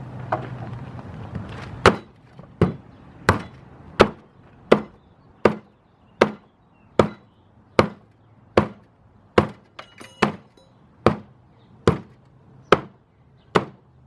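Hard, regular hammer blows, about one every three-quarters of a second, beating on a piece glued to a steel garage door to test the adhesive bond; the piece is not budging.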